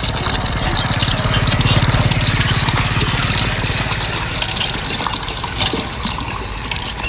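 Hand pump being worked, water splashing from its spout, with an engine running steadily underneath, loudest in the first few seconds.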